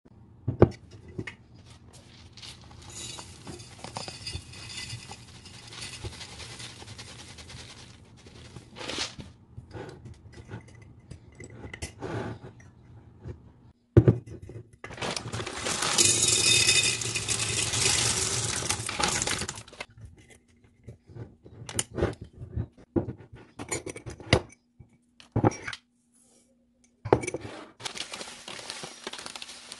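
Glass storage jars handled on a countertop: clinks and knocks of glass, a sharp click about halfway as a swing-top jar's wire clamp lid snaps shut, and stretches of hissing noise. Near the end, something dry and loose pours from a foil bag into a small glass jar.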